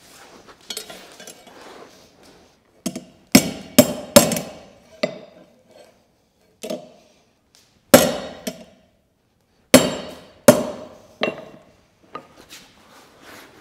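Cross-peen hand hammer striking a steel bar on an anvil in irregular blows with short pauses between, each blow leaving a brief metallic ring.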